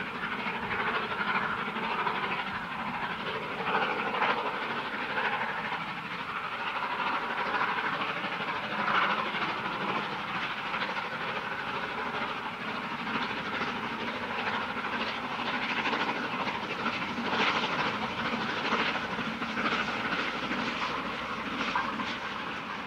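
LNER V2 2-6-2 steam locomotive No. 60800 Green Arrow, a three-cylinder engine, working a passenger train, its exhaust beating rapidly and steadily, mixed with the noise of the train running on the track.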